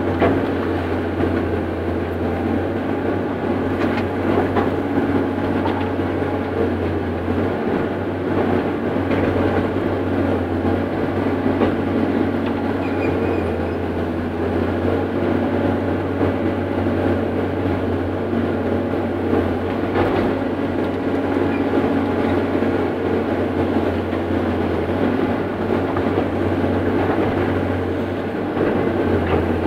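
Caterpillar 318C excavator's diesel engine and hydraulics running steadily under work, heard from inside the cab, with a few short knocks from the working equipment.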